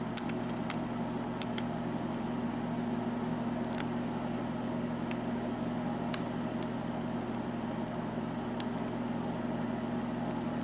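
Faint, sparse clicks of a lock pick working the pins of a Sargent six-pin lock, a few scattered ticks over several seconds, under a louder steady low hum.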